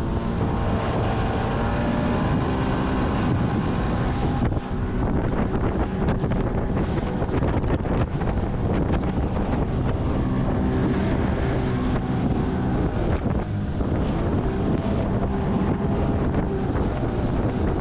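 Outboard motor of a small aluminium boat running under way through chop, with heavy wind buffeting the microphone. Frequent short knocks from the hull slapping the waves.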